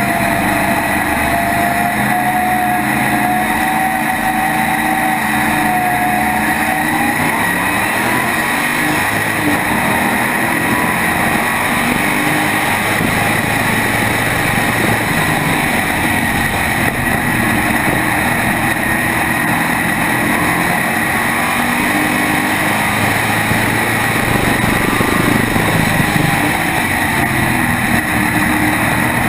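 SK modified race car's small-block V8 heard from an onboard mount, running steadily at low speed for several seconds, then rising in pitch about seven seconds in as the car accelerates away on a restart after a caution. It then runs hard at racing speed.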